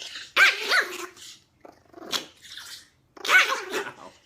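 Small dog barking and growling aggressively in short snappy bouts: one loud bout about half a second in, quieter growls in the middle, and another loud bout a little past three seconds.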